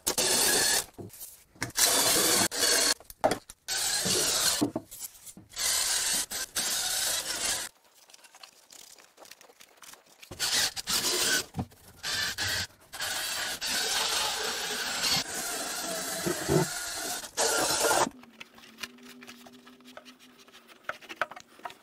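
Drill-mounted scrub brush scrubbing flood dirt off the car's bare metal floor pan, in bursts of a few seconds with a short pause about 8 seconds in. A faint steady hum is left near the end.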